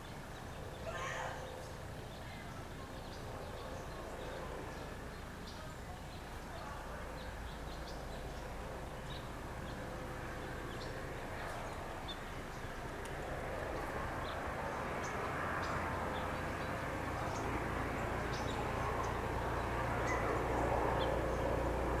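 Steady background traffic rumble that grows louder through the second half. A brief bird call comes about a second in, and faint scattered ticks sit over the top.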